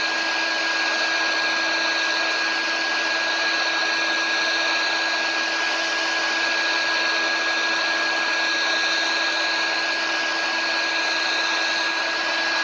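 Electric heat gun with a conical nozzle running steadily on its high setting: a constant blowing rush with a steady high whine and a fainter low hum.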